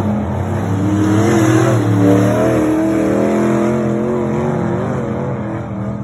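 Dirt-track race car engines running as the cars lap the oval, the engine notes wavering up and down in pitch.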